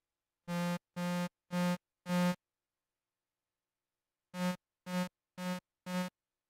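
Hexaphonic Witchcraft Synth playing through an amp as its touch pad is tapped: a buzzy tone sounding in short notes at one pitch. There are four notes, a pause of about two seconds, then four shorter ones.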